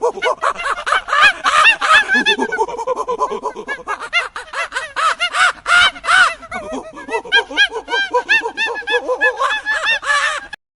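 Many birds calling at once: short harsh calls overlapping rapidly, cutting off suddenly near the end.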